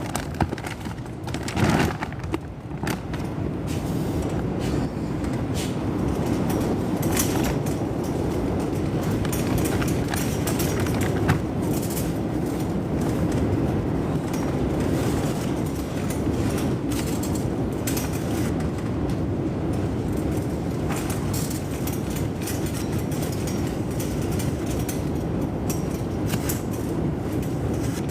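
Strong wind buffeting the microphone in a steady, heavy rumble, with scattered light knocks and clicks through it.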